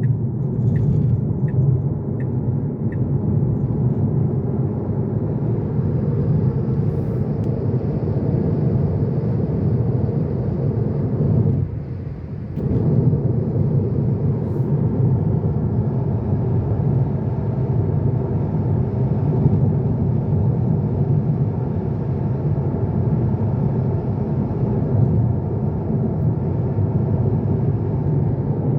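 Road and tyre rumble inside the cabin of a Tesla Model 3 electric car driving over a rough, broken road surface. It is steady, easing off briefly about twelve seconds in. The front air-intake rattle has been fixed, and the owner finds it much better, though he still hears something he places under the seats or at the rear seat.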